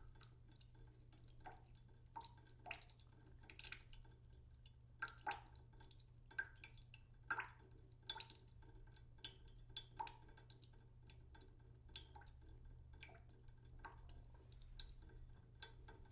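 Faint, scattered soft clicks and wet taps of a utensil and cooked vegetables on a ceramic plate, coming irregularly about once or twice a second, over a low steady hum.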